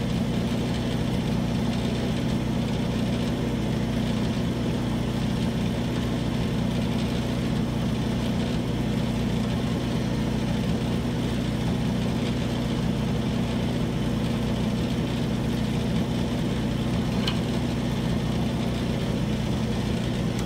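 Wood lathe running a home-made drum sander: a steady motor hum with a constant low drone and an even whirring hiss over it.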